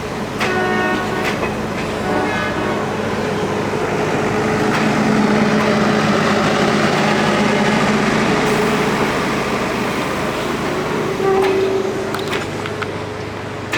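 Railway locomotive running: a steady hum with a rushing noise that swells in the middle and eases off near the end, and short pitched notes in the first two seconds.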